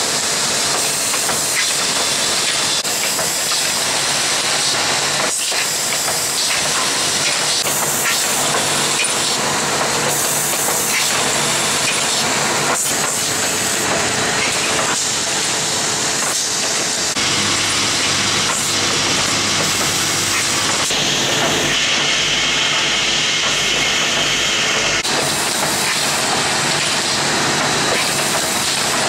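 HFA-MINI radiator-roller assembly automat running: a steady hiss of compressed air with frequent pneumatic clicks and clacks of parts and actuators. A steadier hiss stands out for a few seconds later on.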